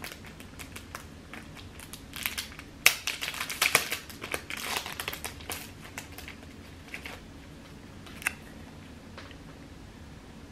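Small packaging being unwrapped by hand: bouts of crinkling and crackling, busiest in the middle, with one sharp crackle near the end.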